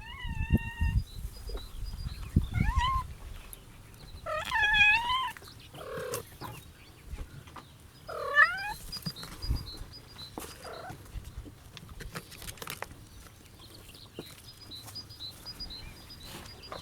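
Kittens meowing, about five separate calls in the first nine seconds, the longest and loudest about four seconds in, among soft bumps and clicks as they play; quieter after that.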